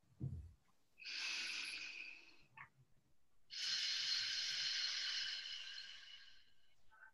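Deep breathing heard through a microphone during a belly-breathing exercise: a breath of about a second and a half, then a longer breath of about three seconds. A soft low thump comes just before the first breath.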